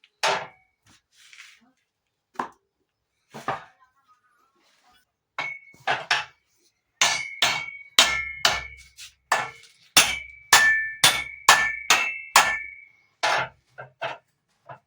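Hammer blows with a metallic ring. A few scattered strikes come first, then from about seven seconds in a steady run of roughly two blows a second for about six seconds.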